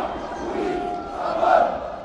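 Large protest crowd chanting in unison, the mass of voices rising and falling in rhythm, loudest about one and a half seconds in.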